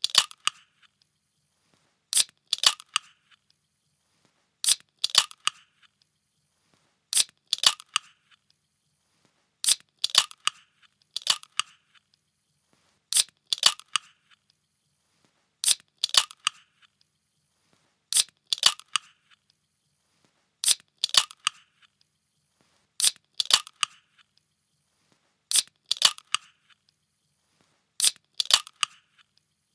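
A can being opened over and over: each opening is a sharp click followed by a short noisy burst. It repeats about every two and a half seconds, a dozen times.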